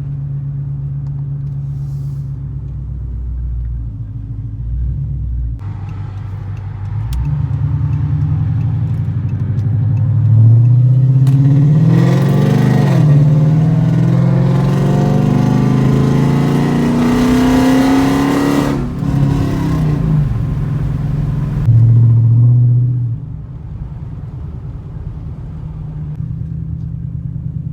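Car engine heard from inside the cabin, idling steadily, then from about ten seconds in accelerating, its note climbing with a brief dip near thirteen seconds as it shifts. It keeps rising until about nineteen seconds, then falls away as the throttle is let off and settles back to a steady idle.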